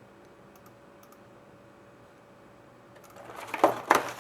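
A sports card box's packaging being torn open: a loud rip and crackle about three seconds in, after a few faint clicks.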